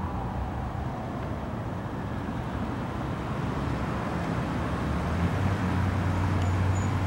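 A heavy vehicle's engine running steadily over road traffic noise. It gets louder and fuller over the last two seconds.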